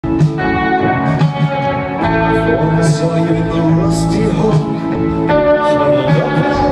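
A live rock band playing amplified through a large outdoor PA, heard from far back in the crowd: sustained electric guitar chords that change about every two to three seconds.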